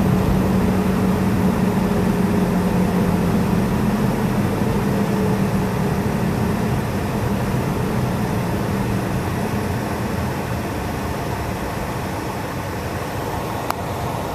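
Road and engine noise heard from inside a moving car: a steady hum over tyre noise that drops gradually as the car slows. A single sharp click near the end.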